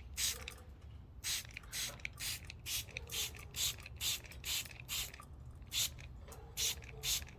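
Hand-held spray bottle squirting warm water in quick repeated pumps, about three hissing sprays a second with a short pause near the middle, misting budgies.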